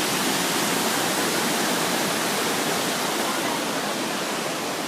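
Steady rush of water from a large waterfall.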